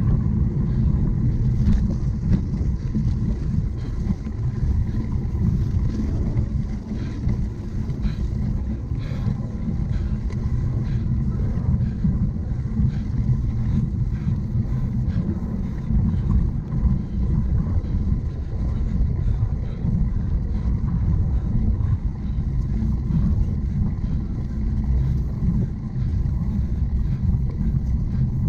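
Steady low rumble of a cyclocross bike riding over rough ground, with wind buffeting the microphone.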